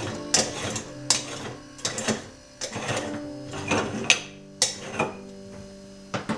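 Soft background music with held notes, under a string of sharp clicks and knocks, one every half second to second, like objects being handled and set down.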